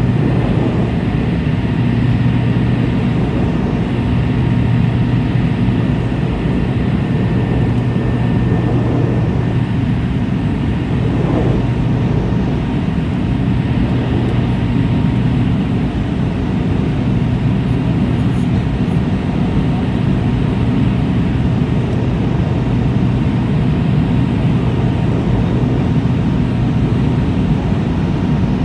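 Cabin noise of a McDonnell Douglas MD-83 climbing out after takeoff: its rear-mounted Pratt & Whitney JT8D-219 turbofans drone steadily with a strong low hum and a fainter high whine, over the rush of air along the fuselage.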